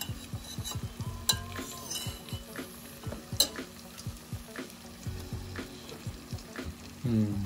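Raw mutton pieces dropped by hand into hot oil and onion masala in a stainless steel pot, sizzling as they go in. There are irregular soft thuds of meat landing and a few sharp clinks of steel against the pot.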